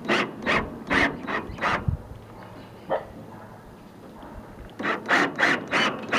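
Rhythmic scraping strokes, about three a second, in two runs with a pause of about three seconds between them.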